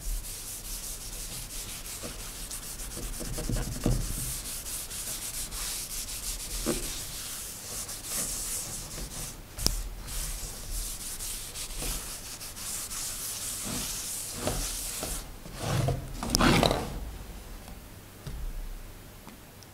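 Rag rubbing olive oil into a hardwood cutting board: a steady, hissing wipe of cloth over the oiled wood surface, with a brief louder bump of handling about four-fifths of the way through.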